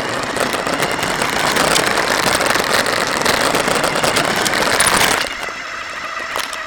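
RC car driving over rough ground, picked up by the camera mounted on it: loud, dense rattling and tyre noise that turns quieter about five seconds in.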